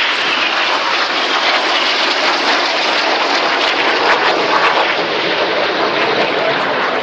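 Jet noise from the Red Arrows' BAE Hawk T1 jets flying past: a loud, steady rushing sound with no break, easing slightly near the end.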